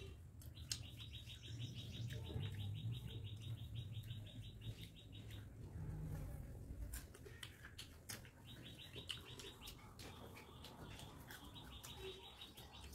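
A bird's rapid, evenly pulsed chirping call in two runs of about five seconds each, with a pause of a few seconds between, over faint clicks of eating by hand from a steel plate.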